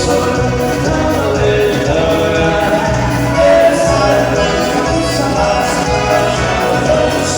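Band music with singing over a steady beat.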